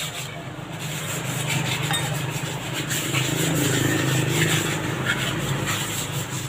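Hands scraping and rubbing over cement flower pots as they are cleaned, a continuous scratchy rasp. A motorbike engine swells and fades behind it, loudest around the middle.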